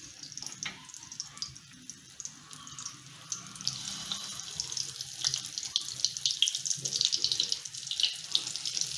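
Hot oil in a kadai sizzling and crackling as masala-coated small brinjals are laid in to shallow-fry, growing louder as more pieces go in.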